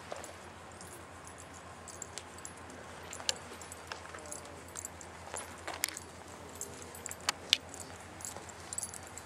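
Faint, scattered clicks and jingles from a marching color guard: footsteps on pavement and carried gear clinking, at uneven spacing.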